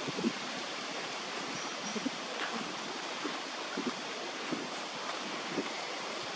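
Steady outdoor background noise, an even rushing hiss, with a few faint soft knocks.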